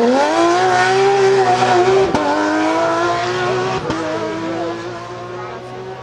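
Porsche 911 GT3 rally car's flat-six engine revving hard as the car accelerates out of a corner, its pitch rising steeply at first and then climbing slowly. Two sharp gear changes about two and four seconds in, and the engine fades as the car pulls away.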